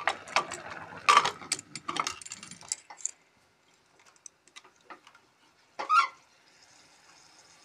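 Aluminium pressure cooker lid being fitted and locked on, with a run of metallic clicks and clanks. About six seconds in, a gas stove burner is lit with one sharp loud click and whoosh, followed by a faint steady hiss of the gas flame.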